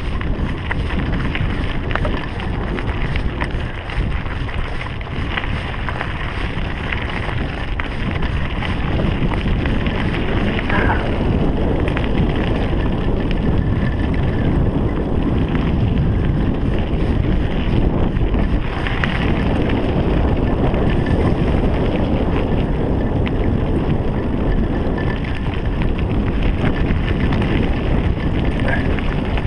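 Wind buffeting a bike rider's GoPro microphone, mixed with mountain bike tyres rolling over a tarmac and dirt track. The noise is steady, with faint small clicks and knocks from the bike over the bumps.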